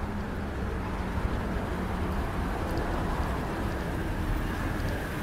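Street traffic: a steady rumble of passing vehicles' engines and tyres on a busy road.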